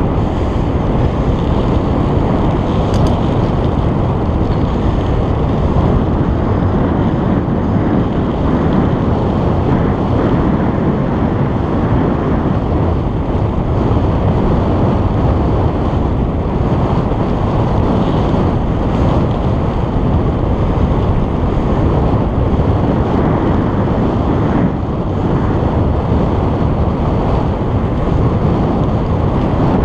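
Wind buffeting the microphone of a GoPro action camera on a moving bicycle: a steady, loud rushing noise.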